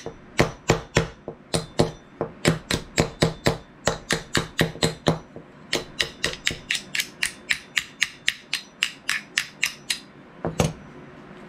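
Small cross-peen hammer tapping steel on a rusty WWII EGW fighting knife, working a rust-stuck part loose on the tang: a long run of sharp metallic taps, about three to four a second, with a faint ring, that stops near the end.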